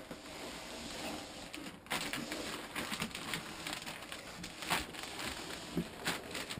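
Plastic-wrapped skis being slid out of a long cardboard box: cardboard scraping and plastic wrap rustling, with scattered small knocks.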